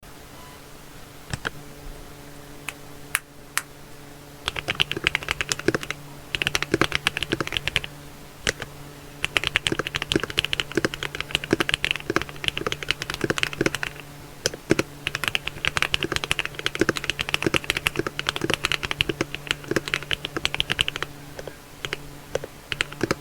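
Typing on an MW65 mechanical keyboard with Akko Starfish: a few single key presses, then quick runs of clacky keystrokes with short pauses between them, and an occasional deeper stroke like a spacebar.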